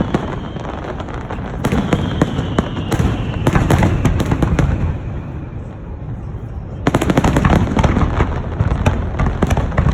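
Fireworks display going off: volleys of rapid crackling and popping shell bursts over a continuous low rumble, easing for a moment mid-way before a second dense volley starts about seven seconds in.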